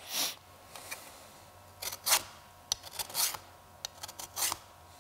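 Single-cut mill file drawn in strokes along the edge of a steel scraper blade, a rasping metal-on-metal scrape with each stroke, about half a dozen uneven strokes. The filing works the edge to raise a burr for shaving wood.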